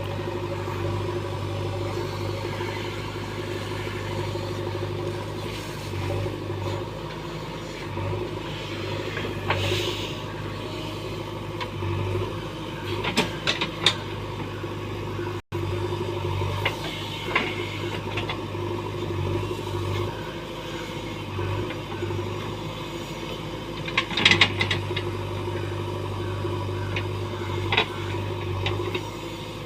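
JCB backhoe loader's diesel engine running steadily under work, with a few sharp metallic knocks from the machine now and then.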